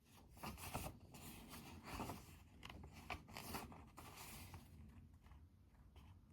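Rustling, scraping handling noise at a desk, in a string of short bursts for about four seconds, then tailing off to a few faint clicks.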